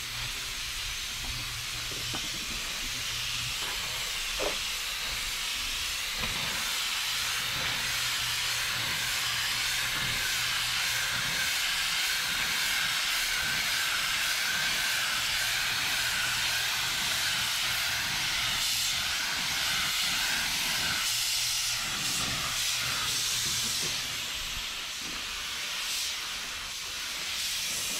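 Compressed-air paint spray gun hissing steadily as it sprays paint, easing briefly a few seconds before the end.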